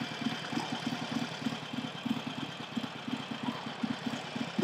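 Harley-Davidson Iron 883 Sportster's air-cooled 883 cc V-twin idling, with a steady, regular pulsing beat.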